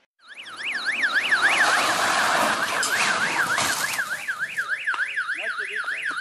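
An electronic siren wailing, its pitch sweeping up and down two to three times a second over a steady background hiss.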